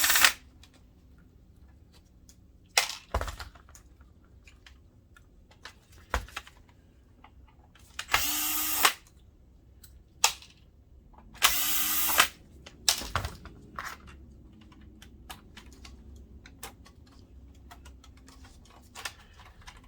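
Electric screwdriver spinning out screws in two short runs of under a second each, with clicks and knocks of handling the plastic projector casing in between.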